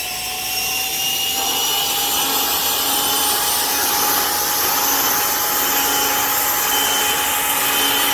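DeWalt DCBL772 60-volt FlexVolt cordless leaf blower running: a steady, loud rush of air with a high fan whine that climbs slightly in the first second or so, then holds.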